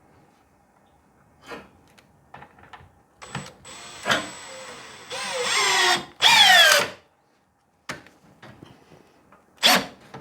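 Power drill with a 7/16 nut driver driving a hex-head screw to fasten a garage door bracket, in two runs of motor whine that fall in pitch as the screw is driven home. A few light handling clicks come before, and a short burst follows near the end.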